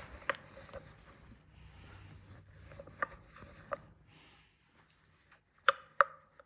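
Metal parts and hand tools being handled during an engine teardown: soft scraping and rubbing with scattered sharp clicks, the two loudest close together near the end.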